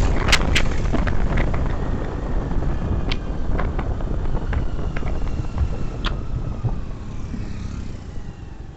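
Road noise of a moving vehicle with wind rumbling on the microphone, and a few sharp clicks in the first second. The noise eases off toward the end.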